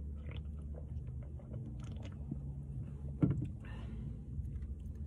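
Close mouth sounds of a person eating: sipping from an aluminium soda can, then chewing, with small clicks and a brief louder sound about three seconds in, over a steady low hum.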